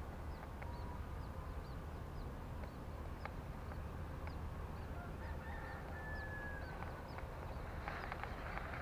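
Short high chirps from a small animal, repeating about twice a second, over a steady low rumble; a single longer call drops slightly in pitch near the middle.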